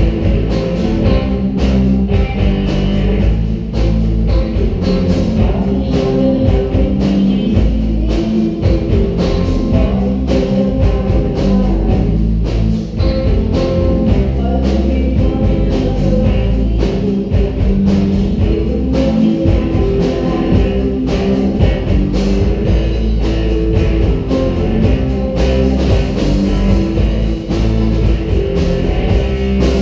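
Live band playing: a woman singing into a microphone over electric guitars, electric bass and a drum kit, amplified through speakers.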